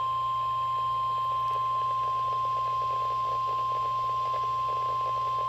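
NOAA Weather Radio's 1050 Hz warning alarm tone: one steady, unbroken high beep from a weather radio receiver, with a low hum and faint static under it. The tone signals that a warning message is about to follow.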